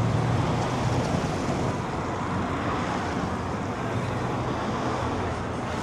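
Steady road traffic noise: vehicle engines running with a low hum under a continuous wash of street noise.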